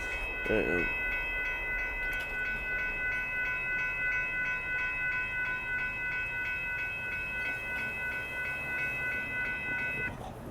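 Railroad grade-crossing warning bell dinging steadily and cutting off about ten seconds in, over the low rumble of an Amtrak passenger train rolling through the crossing.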